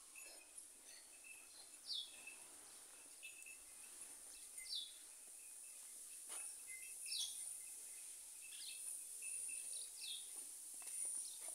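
Faint bird chirps, short falling notes repeated every second or two, over a steady high hiss.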